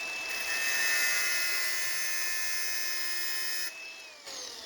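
Angle grinder running at full speed with its disc pressed against a tungsten carbide lathe tool bit, giving a steady whine with a grinding hiss that barely cuts the hard carbide. A bit over three seconds in, the contact stops and the grinder is switched off, its whine falling in pitch as it spins down.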